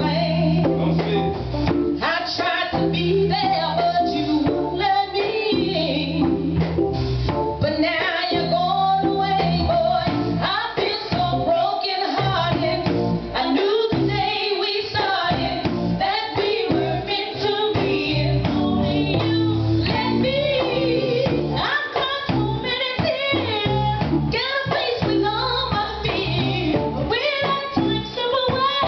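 Live band playing a song, with female vocals sung into microphones over drums and guitar.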